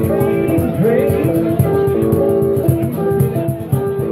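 A small live band playing: strummed acoustic guitar with a second guitar, driven by a steady cajón beat with a rattling snare, and a man singing at times.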